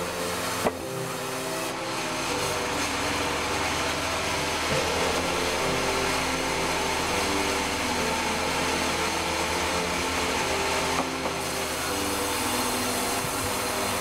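Log band saw running and sawing through a log, a steady dense cutting and motor noise, with a sharp knock about a second in.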